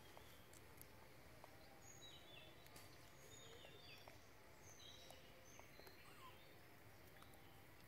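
Near silence: faint outdoor ambience with distant birds giving short high chirps, a string of them in the middle of the stretch, and a few soft ticks.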